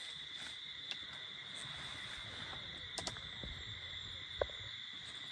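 Insect chorus, a steady high-pitched trill, with a few faint clicks and one sharper click about four seconds in.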